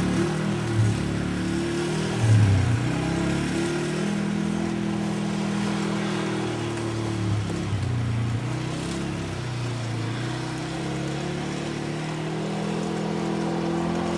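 Can-Am 400cc ATV's single-cylinder engine running, its speed rising and falling several times as it is throttled, with a brief louder surge about two seconds in.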